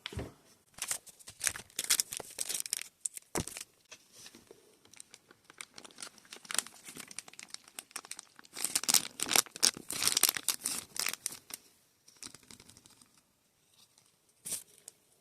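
Toy packaging crinkling and tearing as it is handled and opened, in irregular crackly bursts, busiest around two seconds in and again from about nine to eleven seconds.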